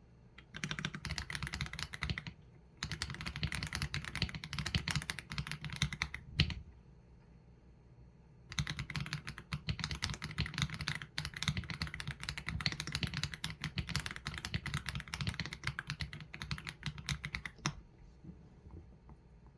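Typing on an AULA F87 Pro mechanical keyboard with Leobog Graywood V3 linear switches and PBT keycaps: runs of rapid keystrokes. A single louder keystroke closes the first runs, then there is a pause of about two seconds, then a long run that stops about two seconds before the end.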